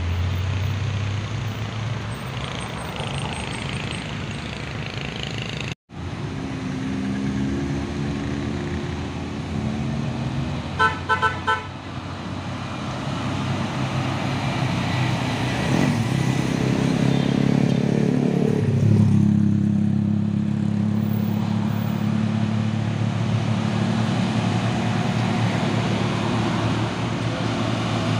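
Diesel truck engines and road traffic running, with four quick horn toots about eleven seconds in. A heavy truck engine close by sets in louder about two-thirds of the way through. There is a brief gap in the sound about six seconds in.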